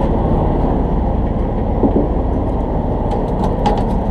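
Steady low rumble of a fishing boat's engine running, with a few faint clicks near the end.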